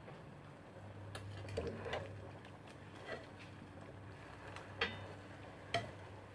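Metal slotted skimmer clinking and scraping against the side of a pot as sweet potato chunks are stirred in bubbling oil and sugar: a few sharp clinks, the loudest two in the second half, over a low steady hum.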